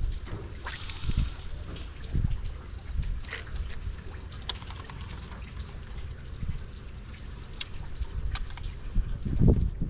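Water dripping and splashing, typical of rain in a monsoon storm, over a low rumble, with scattered ticks and a louder thump about nine and a half seconds in.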